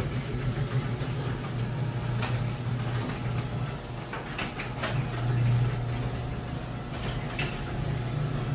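Electric garage door opener running as the garage door closes: a steady motor hum with a few clicks and rattles from the door coming down.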